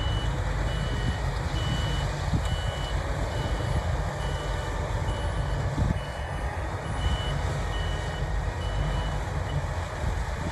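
Reversing alarm on farm machinery beeping steadily, about one and a half short high beeps a second, over a diesel engine running. The beeps stop near the end.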